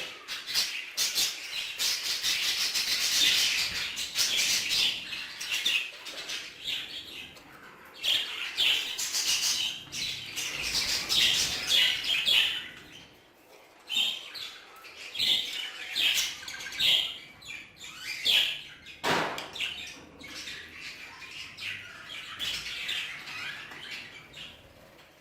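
A flock of Hagoromo (frilled) budgerigars chattering and warbling in bursts, with short clicks among the calls and a brief lull about halfway through.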